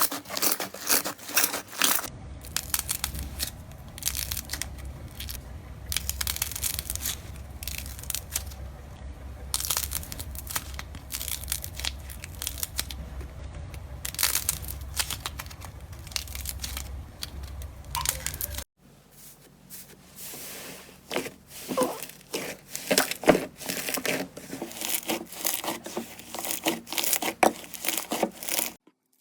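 Slime being squeezed, stretched and pressed by hand, giving a dense run of irregular crackles, snaps and crinkling pops. Several short clips follow one another, with a low steady hum under the sounds in the middle one.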